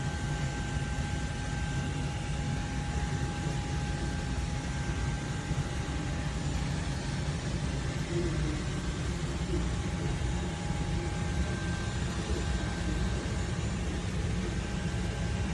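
Steady machine hum: a low rumble with a faint constant whine above it.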